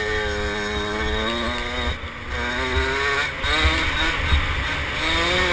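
50cc mini dirt bike engine revving up and down while being ridden: the pitch holds high, drops about two seconds in, then climbs again twice, highest near the end.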